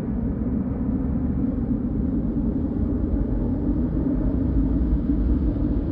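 Steady low rumble of a departing Airbus A321's jet engines as the airliner climbs away after takeoff.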